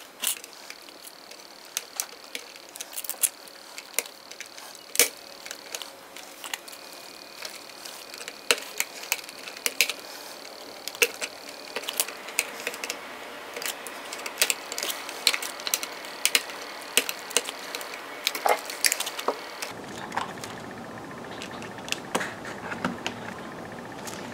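Irregular sharp clicks and scrapes of a hobby knife blade working against a model car as it prys out the small clear plastic headlight lenses.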